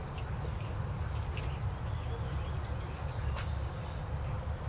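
Outdoor field ambience: a steady low wind rumble on the microphone, with faint high insect chirps and a few light clicks.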